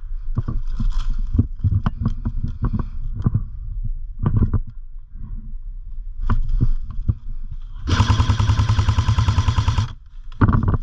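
Airsoft rifle firing a long full-auto burst of about two seconds near the end, with a short burst at about four seconds and another right at the end. Scattered clicks and pops of shots run through the rest.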